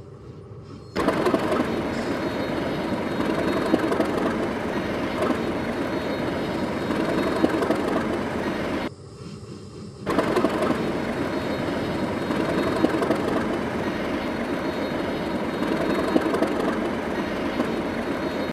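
Train running on the rails, a steady noisy sound of wheels on track. It stops for about a second at nine seconds in, then carries on.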